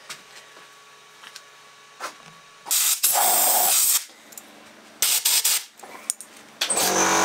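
Three loud bursts of hissing: one lasting over a second, a short one a second later, and a third starting near the end that carries a steady tone in the hiss.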